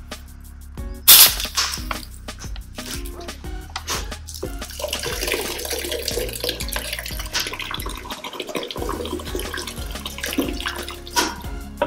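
An aluminium soda can snapped open about a second in, then from about five seconds fizzy orange soda poured in a steady stream into a plastic tub, splashing and fizzing.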